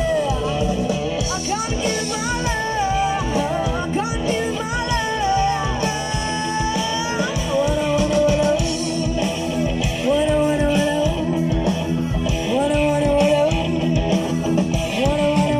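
Live band playing: a woman singing a melody over electric guitar, bass guitar and drums, amplified through a PA and heard from the audience.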